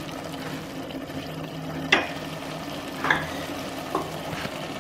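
Chicken masala sizzling in a pot over a steady low hum, with a ladle knocking against the pot three times about a second apart in the second half.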